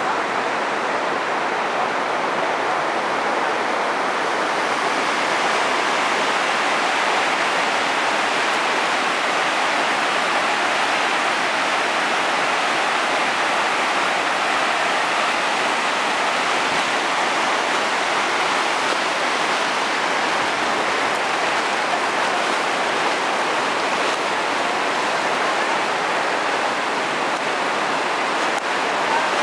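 Floodwater rushing down a dam spillway and over rocky ledges: a steady rush of water that turns brighter and hissier a few seconds in.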